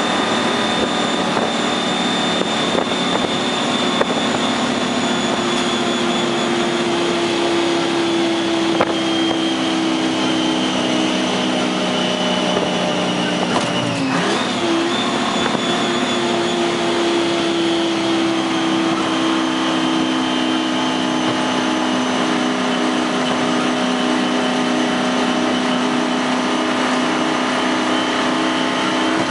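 6V53 Detroit Diesel two-stroke V6 in a 1972 Dodge prime mover, heard from inside the cab, running steadily under load at road speed. About halfway through, the revs dip sharply and pick up again, a gear change on its ten-speed Road Ranger gearbox.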